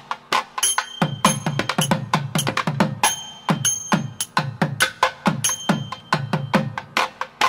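Music of rapid drumming: sharp strokes several times a second, each with a deep tone that drops after the hit, and a high held tone that comes in and out.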